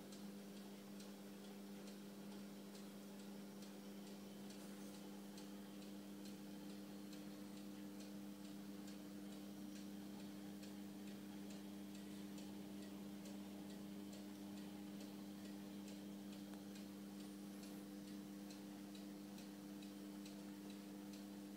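Steady low hum of marine aquarium pumps, with faint, irregular ticking over it.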